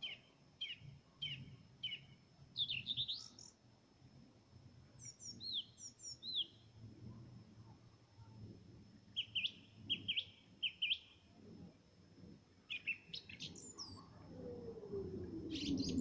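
Nightingale singing: separate phrases of sharp repeated notes and quick whistled sweeps, with short pauses between them. A low rumble with a falling tone grows in the background near the end.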